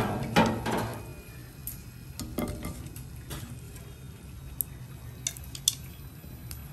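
Wooden chopsticks and a ceramic plate clinking as fried pieces are moved about on the plate: a few louder knocks at the start, then scattered light clicks.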